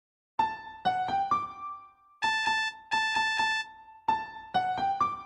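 Huawei phone ringtone: a short electric-piano-like melody of clear sustained notes, with the phrase repeating about 4 seconds in.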